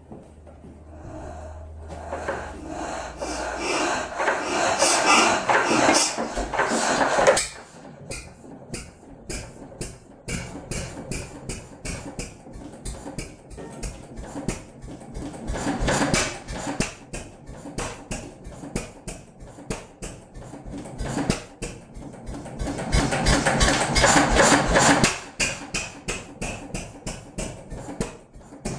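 A 1924 Cérès M1K single-cylinder 6 hp stationary engine being started and running, with a fast, regular knocking beat. Twice a louder rushing noise builds up over a few seconds and then cuts off suddenly.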